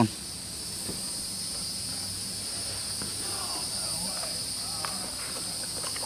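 Steady high-pitched insect chorus, an unbroken drone at two pitches, with a faint low mutter of a voice about halfway through.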